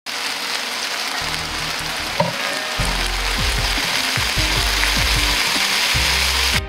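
Stir-fry sizzling in a wok, a dense steady hiss that cuts off abruptly at the end, over background music with low bass notes that enter about a second in.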